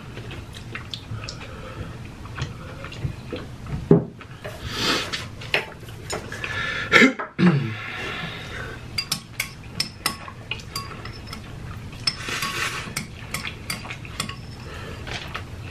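Eating utensils clicking and scraping against a metal baking pan and a ceramic bowl, with many short sharp clinks, as noodles are picked up with chopsticks and a fork. A few short noisy stretches, likely noodles being slurped, come in between.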